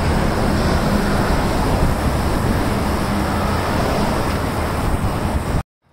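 Steady, loud rush of wind buffeting the microphone on a moving bicycle, mixed with road traffic noise from the bridge's motorway lanes. It cuts off suddenly near the end.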